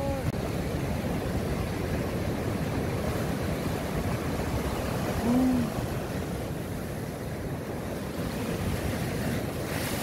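Rough surf breaking and washing onto a sandy beach: a steady rush of waves. A brief vocal sound comes about five seconds in.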